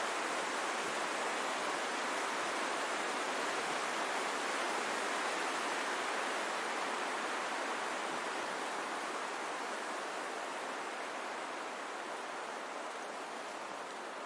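Wind blowing through forest trees: a steady rushing of leaves and branches that eases off slightly over the last several seconds.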